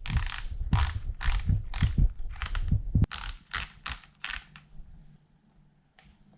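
A ratcheting mechanism clicking in quick rasping bursts, about two a second, stopping about four and a half seconds in.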